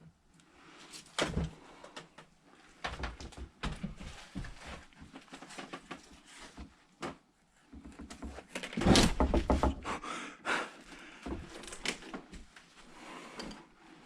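Irregular knocks, creaks and scrapes of footsteps and handling on wooden boards and debris in a collapsing house, with a louder burst of clattering about nine seconds in.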